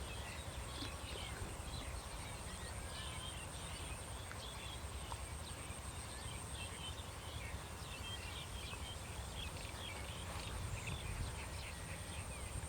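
Countryside ambience of many small birds chirping and chattering over a steady, high-pitched insect buzz, with a low rumble underneath.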